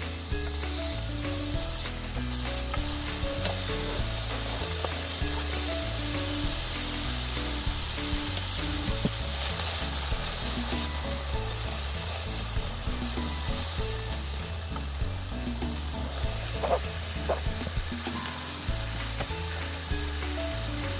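Pork and cabbage stir-frying in a pan, sizzling steadily, with a few sharp clicks near the end.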